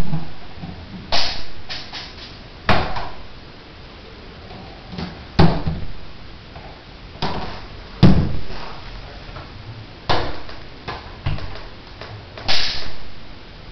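Plastic hamster exercise ball rolling on a hardwood floor and bumping into doors and baseboards: irregular sharp knocks, one every second or two, with a low rolling rumble between them.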